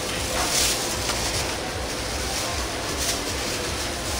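Steady sizzling of handmade fish cakes deep-frying in hot oil, with a low rumble underneath and brief louder hisses about half a second and three seconds in.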